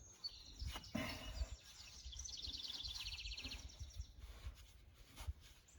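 A bird gives a rapid high-pitched trill about two seconds in, lasting just over a second, over a few faint knocks.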